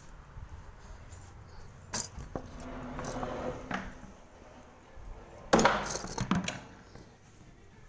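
Keys jangling and a door being unlocked and opened: a few light clicks, a stretch of rustling, then a burst of sharp metallic clatter and knocks about five and a half seconds in.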